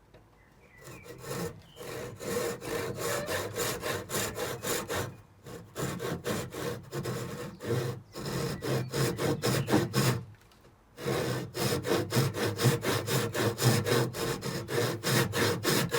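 Handsaw starting a rip cut along the grain of a square timber post: quick back-and-forth strokes, with a brief pause about five seconds in and a longer one about ten seconds in.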